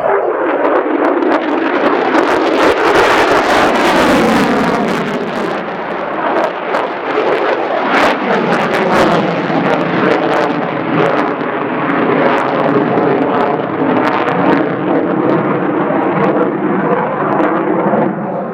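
Jet noise from the F-35A Lightning II's single afterburning turbofan as the fighter flies a display pass. It is loud throughout, with a falling sweep in its tone over the first few seconds.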